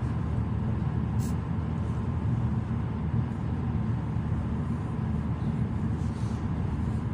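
Steady road and engine noise of a car cruising at highway speed, heard inside the cabin as a low, even rumble, with one short, faint high click about a second in.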